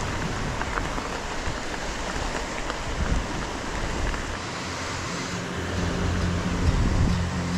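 Steady rushing noise of a mountain bike rolling along a gravel path, tyre crunch and wind on the microphone. About five seconds in the hiss thins as the ride reaches asphalt, and background music with a steady bass line comes in.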